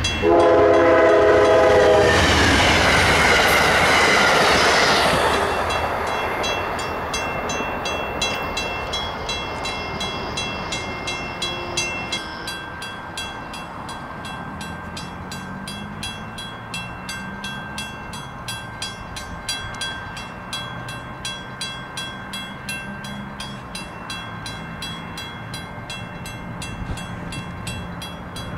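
A diesel locomotive's multi-chime air horn sounds a chord for about two seconds, then the train passes close with a loud rush that fades over several seconds. Later a grade-crossing bell dings steadily over a low engine rumble.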